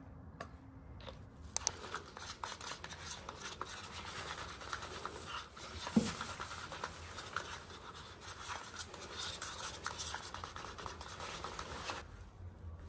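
Tinted paint being stirred and scraped with a small wooden stick in a small cup: a steady run of quick scratching and clicking, with one sharper knock about six seconds in.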